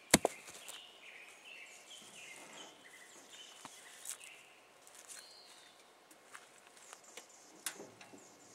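A heavy field rock tumbling out of a metal dump cart and landing with a sharp knock, two hits in quick succession just after the start. Afterwards birds chirp faintly, with a few small clicks and rustles.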